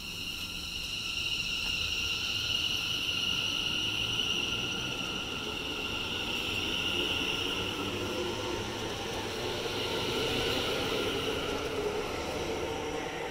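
Electric multiple unit pulling out of the platform and gathering speed: a steady high whine from its traction equipment over a rumble of wheels on rail that grows from about halfway through.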